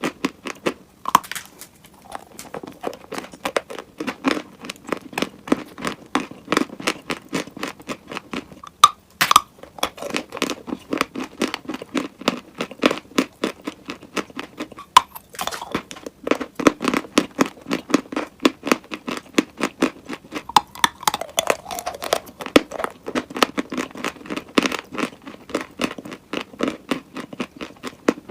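Close-miked chewing of dry, chalk-like eating clay: a dense run of rapid crunches, broken by brief pauses about nine and fifteen seconds in.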